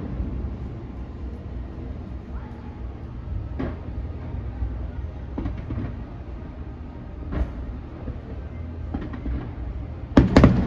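Distant fireworks bursting: scattered sharp bangs every couple of seconds over a low, steady rumble, with a loud cluster of bangs near the end.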